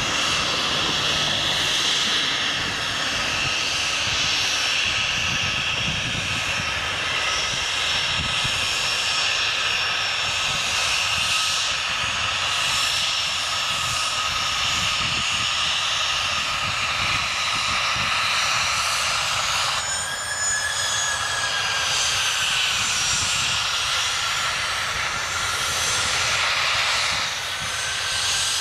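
Jet engines whining steadily: a Boeing 737-800's CFM56 turbofans running, then from about twenty seconds in the higher, closer whine of an Embraer Phenom 100's small twin turbofans as it taxies.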